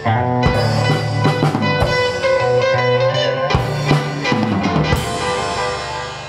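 Post-punk band playing: a drum kit keeping the beat under held bass guitar notes and guitar.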